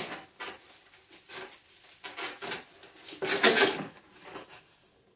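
Rustling and scraping of box packaging as a carburetor is pulled out of it, in irregular bursts with the loudest rustle about three and a half seconds in.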